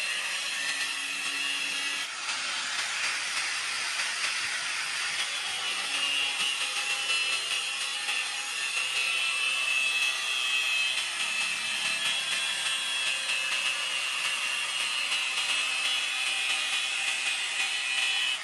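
Electric angle grinder with a thin cut-off disc cutting into a polished steel knife blade, scoring lines along it. It makes a steady grinding hiss with a high whine that wavers as the disc bites, easing briefly about two seconds in.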